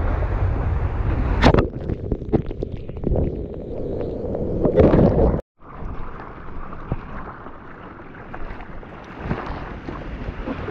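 Rushing noise of a breaking wave and whitewater close to a board-mounted GoPro, with sharp splashes hitting the camera housing. About halfway through the sound cuts out abruptly, then gives way to quieter water sloshing and splashing around the surfboard.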